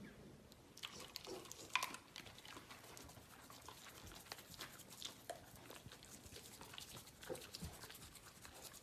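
A dog moving about: faint clicking and pattering, with a few short high squeaks, the clearest a little under two seconds in.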